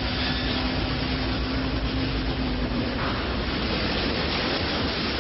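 Motor cruisers running flat out side by side: engine noise under a steady rush of spray and wash from their hulls. A steady low tone stops about three seconds in, leaving the rush of water and engines.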